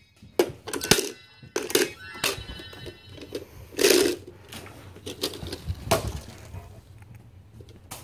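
Small bell-like jingling and clinking, twice in the first two or three seconds, mixed with sharp knocks and bumps; a louder thump about four seconds in, then scattered knocks.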